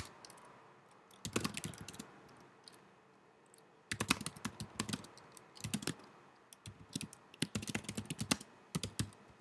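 Typing on a computer keyboard: short bursts of key clicks separated by pauses of a second or two.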